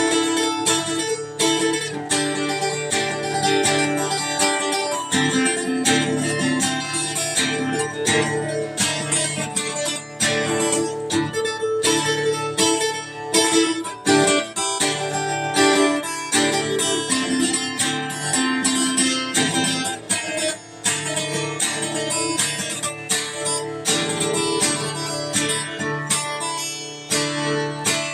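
Solo instrumental music on a plucked string instrument, played with fast, closely spaced picked notes over sustained low notes, meant to imitate bamboo brushing in the wind.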